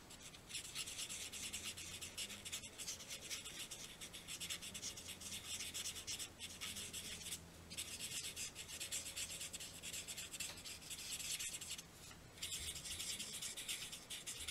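A Stampin' Blends alcohol marker colouring on cardstock: a faint, quick scratchy rubbing of back-and-forth strokes, broken by a few short pauses.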